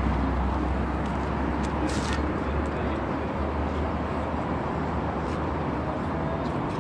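Steady outdoor background noise with a strong low rumble, like distant road traffic or wind on the microphone, with a brief rustle about two seconds in.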